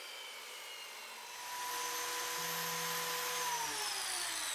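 A handheld biscuit joiner's electric motor starts, runs steadily for about two seconds, then is switched off and winds down with a falling whine. At the start, a fainter falling whine fades out.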